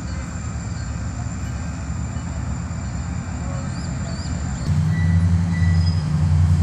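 Florida East Coast Railway diesel locomotives throttling up as the train gets moving, heard from a distance as a low engine rumble. It turns louder and steadier about two-thirds of the way in.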